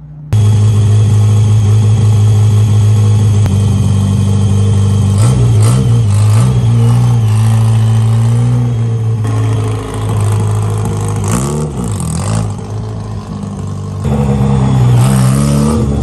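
1963 Austin-Healey Sprite's engine running loud as the car drives, its pitch dipping and rising a few times as it revs, and growing louder near the end.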